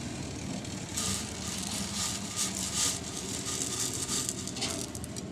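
Split chickpeas (chana dal) poured from a metal dish into a plastic bag on a weighing scale: a dense, irregular patter of dry grains with crinkling plastic, starting about a second in.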